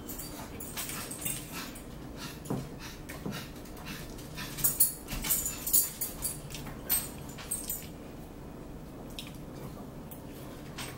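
Metal forks clinking and scraping on plates during a meal, mixed with close chewing and mouth sounds. A run of louder clinks comes in the middle.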